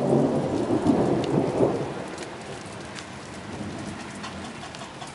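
Thunder rumbling from a supercell storm, loudest for the first two seconds and then fading away, while light rain falls with scattered drops ticking.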